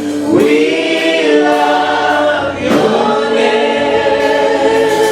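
Church congregation singing a gospel worship song together, with long held notes that slide from one pitch to the next.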